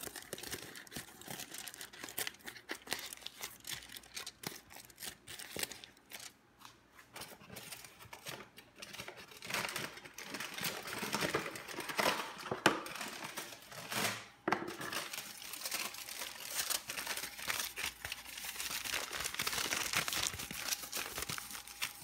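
Aluminium foil crinkling as sheets of it are folded and tucked around dough in a glass baking dish, an irregular crackling that gets busier and louder about nine seconds in.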